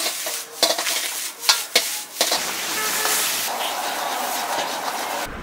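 Metal ladle knocking and scraping in a wok as egg fried rice is stir-fried, four sharp clangs in the first two seconds. Then a steady sizzle of greens frying hot in a wok over a gas burner, with a low rumble beneath.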